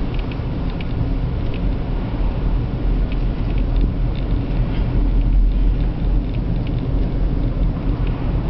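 Steady low rumble of engine and road noise inside a moving car's cabin, with light scattered ticks and rattles throughout.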